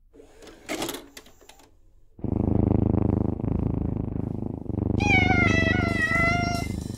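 A VHS tape clicks and clatters into a VCR, then a cat purrs loudly in long breaths. Over the last two seconds of the purring, a high drawn-out tone steps slowly down in pitch.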